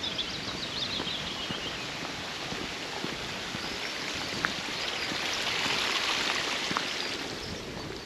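Steady rushing of a stream beside the path, growing louder in the second half. A bird trills near the start, and a few footsteps crunch on gravel.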